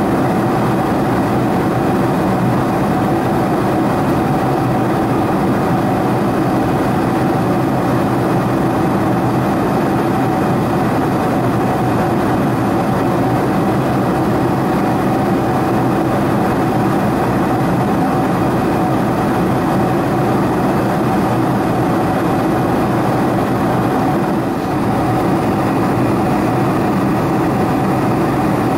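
Cabin noise inside a Boeing 747-400 in flight, heard from a window seat beside the wing: an even, unbroken rush of airflow over the fuselage and the drone of its General Electric CF6-80C2 turbofans, with a steady whine running over it.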